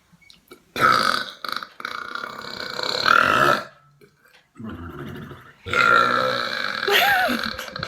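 Deep, drawn-out burps, three in a row, the first nearly three seconds long.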